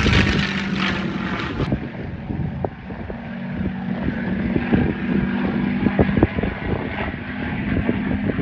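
A P-51 Mustang's V-12 piston engine drones loud overhead, its pitch falling as it goes past. After a sudden cut, a quieter, steady aircraft engine drone goes on, with wind buffeting the microphone.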